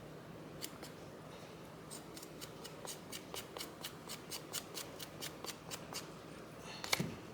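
A metal spoon scraping the skin off a piece of fresh ginger root in a run of short, quick strokes, about four a second. There is one louder knock near the end.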